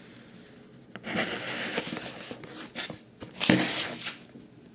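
Cardboard tablet box handled and moved on a table: about three seconds of rustling and scraping with short sharp knocks, the loudest near the end.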